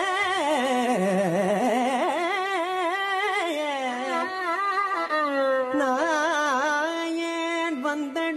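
Carnatic violin playing a winding melodic phrase full of quick oscillating ornaments (gamakas), over a steady drone.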